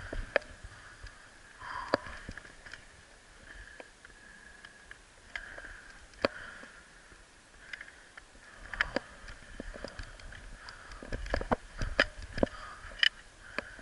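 Breathing of a skier who has just fallen, in soft puffs every second or two, with scattered sharp clicks and knocks from ski and pole being handled in the snow. The knocks come more often in the second half.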